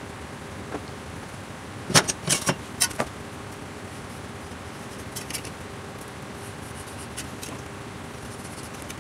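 A steel ruler clicking and clinking against a thin galvanised steel sheet as it is set down and positioned, a cluster of sharp metallic clicks about two to three seconds in, then a few fainter ticks while a marker draws along the ruler, over a steady low workshop hum.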